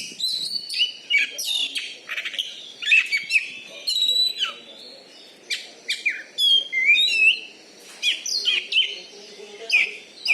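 Oriental magpie-robin (kacer) singing a loud, varied song of up- and down-gliding whistles, rapid chatters and sharp notes, phrase after phrase with short gaps.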